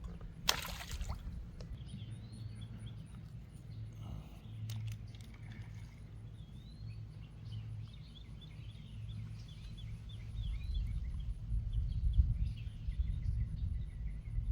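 Small birds chirping repeatedly over a low, uneven rumble, with a sharp brief rustle about half a second in. The rumble grows louder near the end.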